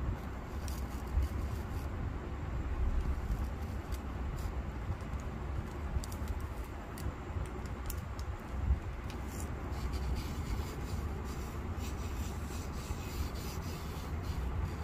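Fingers rubbing and pressing coloured sand onto a sticky sand-art sheet: soft scratchy rubbing with scattered light ticks, over a steady low rumble.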